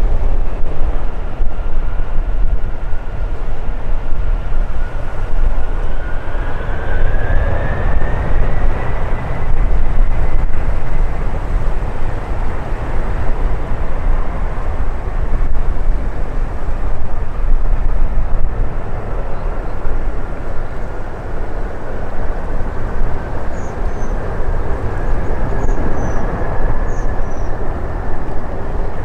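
Jet airliner engines running loud and steady with a deep rumble and a high whine; about six seconds in the whine rises in pitch and holds higher.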